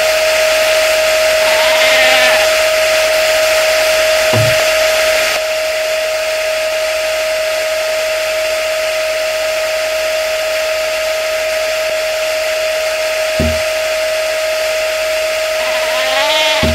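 Vacuum cleaner motor running steadily, a loud whine over rushing air, its hiss dropping slightly about five seconds in. Two short low thumps and a couple of brief warbling squeaks sound over it.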